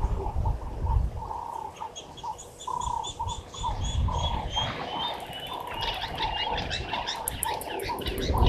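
Several birds calling at once: a low note repeated over and over, a run of evenly spaced high piping notes at about four a second in the middle, and a busy burst of chirping near the end. A low rumbling noise comes and goes underneath and is loudest at the start and the end.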